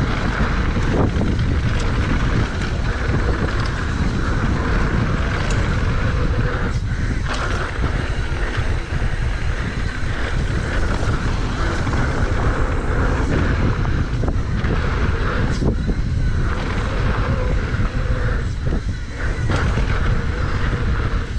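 Wind rushing over the camera microphone at riding speed, over the rumble of a Santa Cruz V10 downhill mountain bike's tyres on hard-packed dirt and the rattle of the bike over bumps, with a few sharp clacks along the way.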